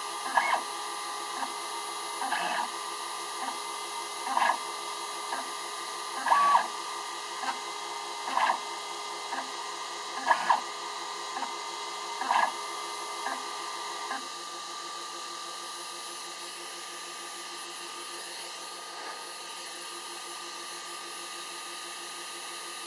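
Stepper motors of a small CNC laser cutter moving the laser head in short jogs, each a brief whir, about one a second, while it cuts a solder stencil. The moves stop about two-thirds of the way through as the job finishes, and a steady high hum carries on.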